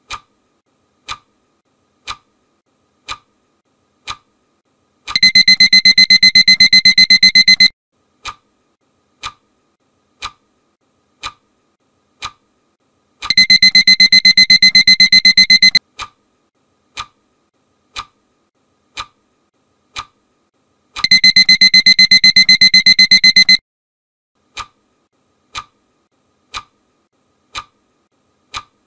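Quiz countdown timer sound effect: a clock ticks five times at about one tick a second, then a rapidly pulsing high-pitched alarm-clock beep sounds for about two and a half seconds. The tick-then-alarm cycle repeats three times, signalling that the time to answer is up.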